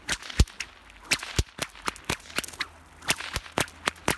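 A whip swung in continuous loops, cracking in a rapid, uneven series of sharp cracks, roughly three to four a second.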